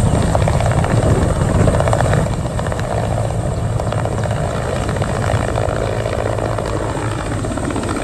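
Mil Mi-8 helicopter lifting off and climbing away: its twin turbine engines run at takeoff power under a steady, rapid chop of the main rotor.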